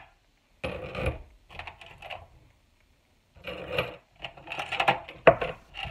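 Metal dog chains jingling and clinking as they are lifted and dropped in and around a metal box, in four bursts with short pauses between.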